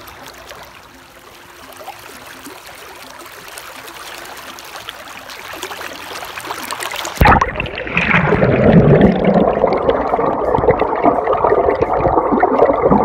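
Fast-moving creek water rushing, slowly getting louder; about seven seconds in it turns abruptly into a loud, muffled churning with the high end gone, the stream heard from underwater.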